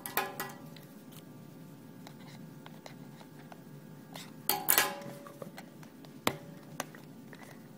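Small cardboard box being handled against a glass tabletop: a few light taps and clicks, with a louder burst of handling noise about four and a half seconds in.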